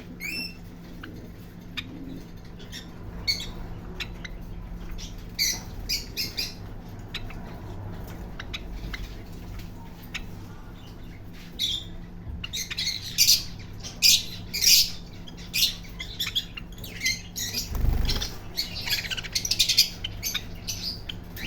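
Parrot squawking and chirping in short, sharp calls, a few scattered ones at first, then a dense run of them in the second half.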